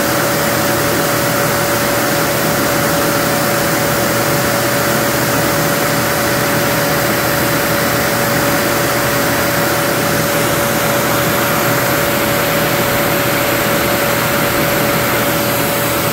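A machine running steadily: an even rushing noise with a constant mid-pitched whine that never changes.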